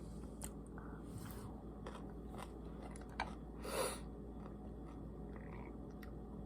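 A person chewing pickles: quiet, sparse wet crunches and mouth clicks, with one louder crunch a little under four seconds in.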